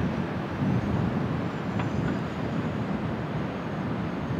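Wind buffeting the microphone: a low, uneven rumble that swells and fades irregularly.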